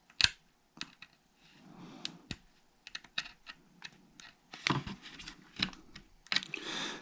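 Leftover glue being picked and scraped off the plastic antenna mounts of a drone: irregular small clicks and a few short scratches.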